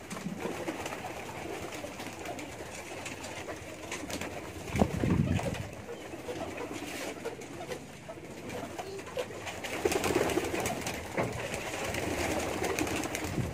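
Domestic pigeons cooing, with a louder, deeper coo about five seconds in and another around ten seconds.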